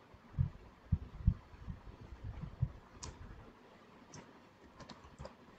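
Computer keyboard keystrokes, about a dozen short soft taps and clicks at an uneven pace as figures are typed.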